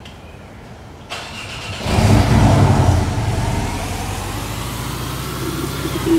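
Porsche sports car engine starting: a cranking sound about a second in, catching with a loud rev flare about two seconds in, then settling to a steady idle.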